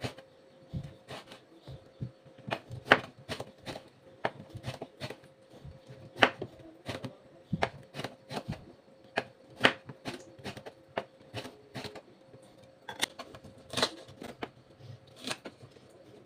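Kitchen knife cutting eggplant, then green beans, on a cutting board: irregular light knocks as the blade goes through and meets the board, about one or two a second.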